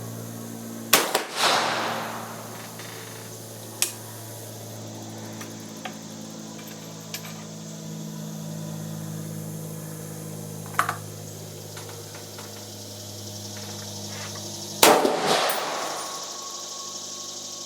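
Two rifle shots from an Austrian Werndl single-shot rifle, about fourteen seconds apart, each followed by a ringing echo of about a second. A few fainter sharp cracks fall between them over a steady low hum.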